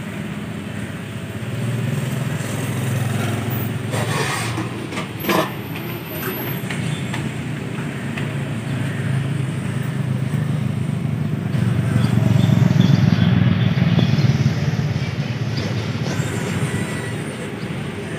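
Steady low rumble of passing road traffic, swelling as a louder vehicle goes by about twelve seconds in. Two brief knocks come about four and five seconds in.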